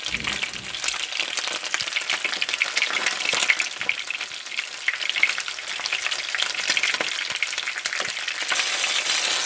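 A whole fish shallow-frying in hot oil in a frying pan: steady sizzling with many small crackles and pops as the second side browns.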